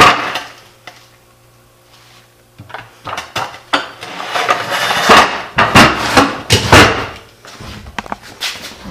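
A wooden caster cart being turned over by hand on a concrete floor: a knock at the start, then a run of wooden knocks, scrapes and metal caster clatter from about three to eight seconds in.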